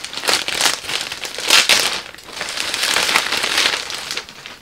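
Paper wrapping rustling and crinkling as a handbag is lifted out of its box and unwrapped: several short swishes, then a longer stretch of continuous rustling about halfway through.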